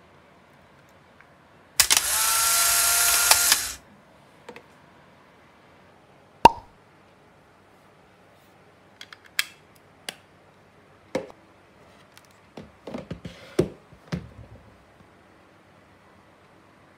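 Milk pouring from a plastic jug into a glass for about two seconds, then a single sharp clink, then a scatter of small plastic clicks and taps as a wireless-earbud case is opened and handled.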